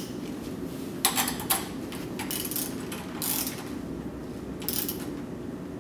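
Tool working a hex nut tight on an end-feed terminal: metal clicks and scrapes, a cluster of sharp clicks about a second in, then a few scattered clicks, over a steady low hum.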